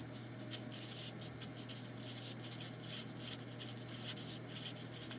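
Felt-tip pen writing on paper: a run of short pen strokes, over a steady low hum.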